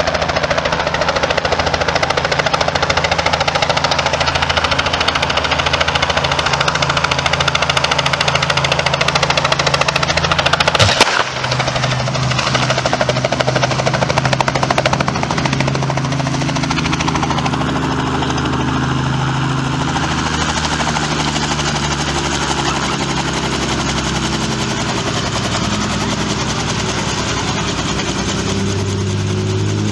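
Light two-bladed helicopter running, its rotor beating in a rapid steady chop. About eleven seconds in there is a single sharp crack, the rotor striking a power line. After it the helicopter keeps running steadily.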